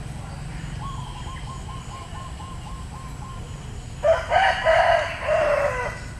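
A rooster crowing once, a loud multi-part crow starting about four seconds in, its last note drawn out and falling. Before it, a faint quick run of short chirps.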